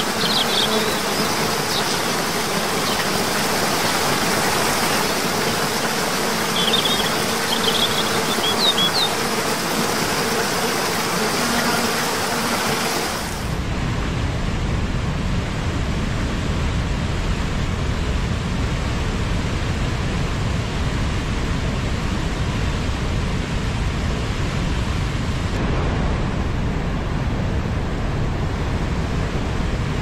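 Waterfall cascading over rock tiers: a steady rush of falling water, with a few short bird chirps in the first half. About halfway in it changes abruptly to a deeper, heavier rush of a river surging through a rocky gorge.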